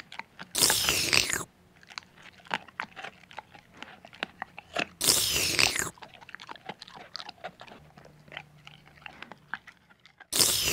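Cartoon eating sound effect: loud crunchy munching about half a second in and again about five seconds in, with quieter crackling chews in between, for a toy pig gobbling hotdogs.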